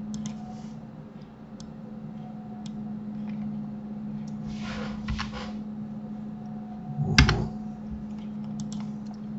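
Steady low electrical hum with a few faint clicks, typical of a mouse and keyboard at a desk. There is a soft hiss about five seconds in and a sharper knock just after seven seconds, which is the loudest sound.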